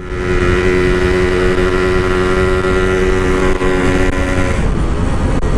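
Yamaha RX-King two-stroke single-cylinder engine running at a steady, low cruising speed through a stock-style side-exit exhaust, with wind and road noise. The steady engine note fades about four and a half seconds in, leaving the wind and road rumble.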